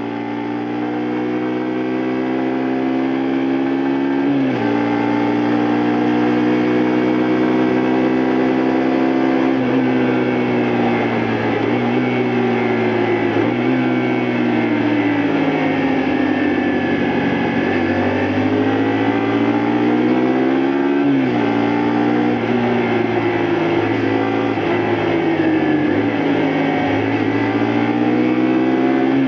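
2002 Honda Varadero 125's small V-twin engine running under way, its note climbing as it accelerates and dropping sharply several times as gears change, with a slower dip and rise near the middle as it eases off and pulls again.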